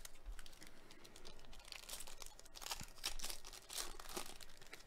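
The plastic wrapper of a 2021 Panini Contenders baseball card pack crinkling and tearing as gloved hands rip it open. It comes as an irregular run of crackles, louder past the middle.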